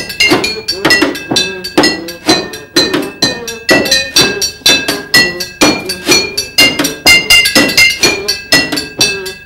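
Live instrumental music: quick struck notes, about three to four a second, that ring on brightly, over a lower melodic line.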